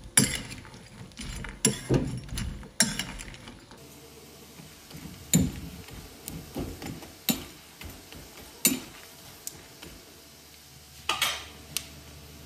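A steel ladle clinking and scraping against an iron kadai as pieces of dried buffalo meat are stirred in hot oil: quick clinks for the first few seconds, then single knocks a second or more apart. A faint sizzle of frying runs underneath.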